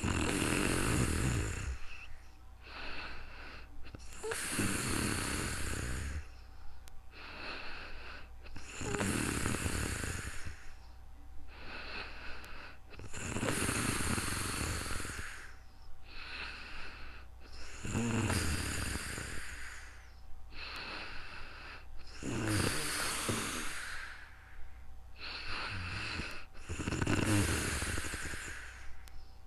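A sleeping person snoring steadily: seven loud snores with a low rumble, about every four and a half seconds, each followed by a shorter, quieter breath.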